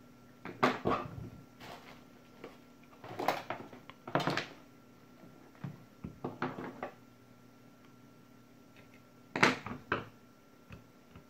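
Handling clatter: about five bursts of short knocks and rattles as the metal-framed switching power supply board is handled and shifted on a silicone work mat, the loudest near the end.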